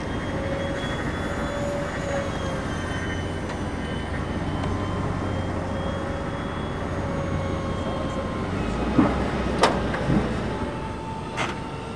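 Distant GWS Me-262 RC jet's electric ducted fans whining, the pitch slowly wavering up and down, over a steady rushing noise. A few sharp knocks sound near the end.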